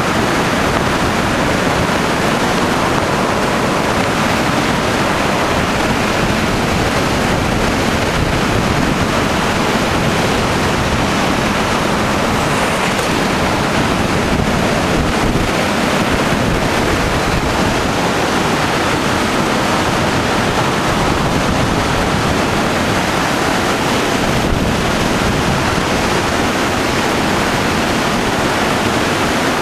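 Steady rushing road and wind noise from a moving car, with no distinct engine note or other events.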